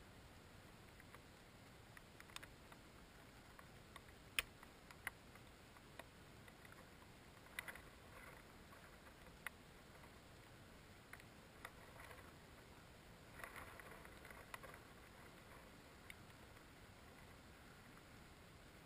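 Near silence with scattered faint clicks and ticks, one sharper click about four seconds in and a short crackly stretch about two-thirds of the way through.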